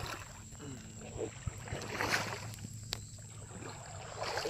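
Paddle strokes splashing in the water about every two seconds as a small boat is paddled along.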